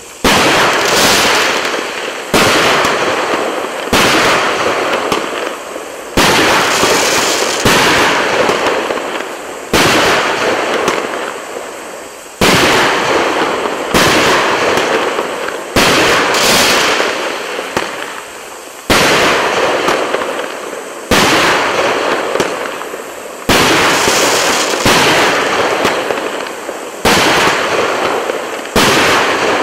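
A 64-shot 1.25-inch firework cake ('Korporativ') firing shot after shot, about one every two seconds, each a sharp report trailing off in a noisy crackle that fades before the next.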